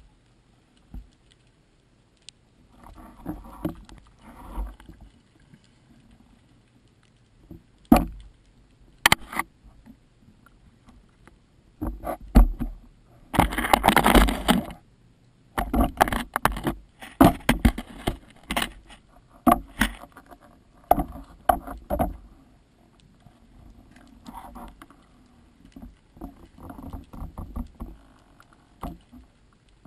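Underwater handling noise: irregular clicks and knocks from the speargun and its mounted camera housing touching rock. Midway comes a loud rush of water noise lasting about two seconds, followed by clusters of sharp knocks.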